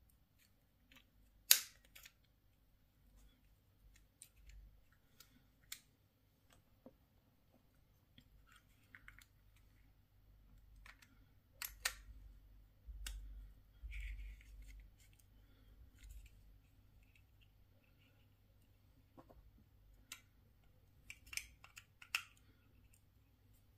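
Scattered sharp clicks and light handling noise from the small plastic parts of a Mercedes-Benz key fob and its housing, with the loudest snap about a second and a half in.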